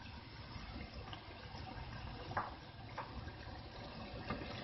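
Boiled white chickpeas tipped into a pot of chicken gravy, a faint wet sloshing as they slide in, then a spoon stirring them through the gravy with two light knocks about two and a half and three seconds in.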